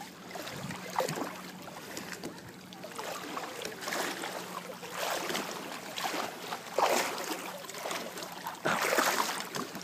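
Shallow lake water sloshing and splashing in irregular surges every second or two, the strongest near the end.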